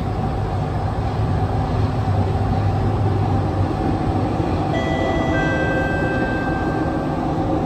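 Interior running noise of a Kawasaki & CRRC Sifang CT251 metro train in motion: a steady rumble and hiss. A little past halfway, several high, steady whining tones join in one after another.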